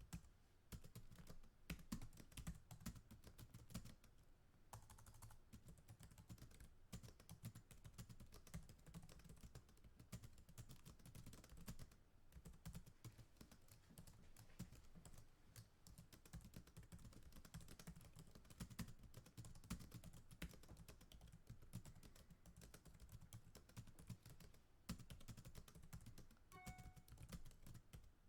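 Fast typing on a computer keyboard: a dense, quiet, continuous stream of key clicks, with a brief pause about four and a half seconds in.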